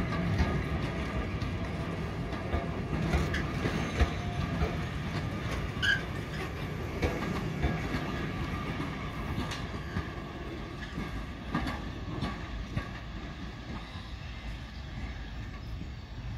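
Diesel-hauled train running past, its wheels clicking over the rail joints above a low rumble, fading gradually toward the end.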